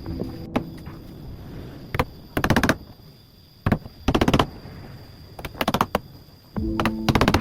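Hammer driving nails into the wooden frame of a coop, in about four bursts of quick, sharp blows, the last one longest.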